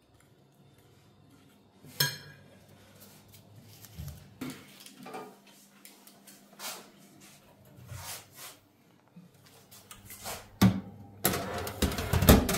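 Kitchen clatter of dishes and utensils knocking and clinking, in scattered single knocks. A sharp knock comes about two seconds in, and a busier run of clatter near the end.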